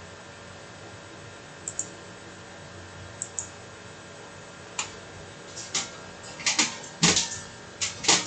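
Clicks of the computer keyboard and mouse at the CNC control PC. They are scattered and sharp, some in quick pairs, and come more often in the second half, over a steady faint hum.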